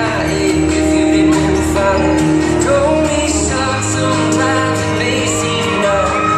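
A recorded song with singing, playing loudly and steadily.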